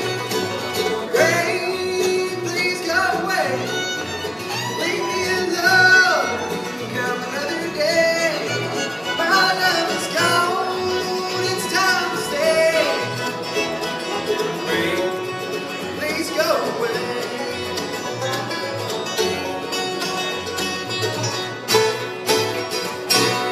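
Live bluegrass band playing: banjo, two acoustic guitars, mandolin, upright bass and fiddle.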